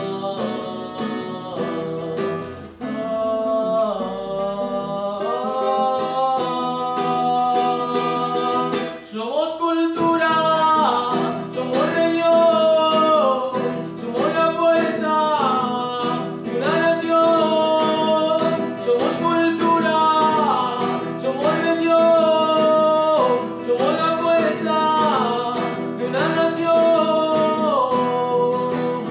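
A man singing over his own strummed classical guitar, holding long notes that slide between pitches; his voice grows louder about ten seconds in.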